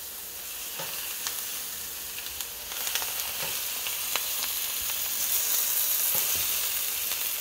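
Garlic and onion frying in butter in a stainless steel skillet: a steady sizzle that grows louder about three seconds in as fresh sweet potato leaves are tipped into the hot pan, with a few light clicks.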